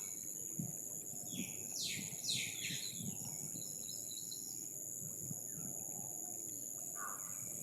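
Outdoor ambience: a steady high-pitched insect drone with a few quick falling bird calls about two seconds in, over low background noise.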